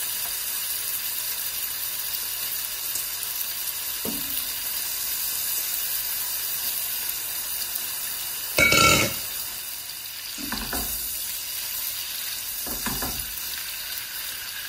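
Cubes of beef frying in butter and olive oil in a pot, with a steady sizzle. About two-thirds of the way through there is one brief, loud clatter, and a couple of softer scrapes follow as the meat is stirred with a spatula.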